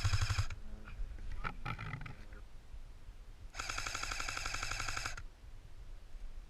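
Airsoft M14 electric rifle firing on full auto: a short burst right at the start, then a longer burst of about a second and a half roughly three and a half seconds in, each a rapid, even rattle of shots, laid down as covering fire.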